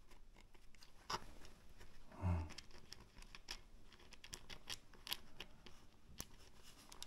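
Faint clicks, taps and rustles of small parts being handled by hand during assembly, with one louder short low sound about two seconds in.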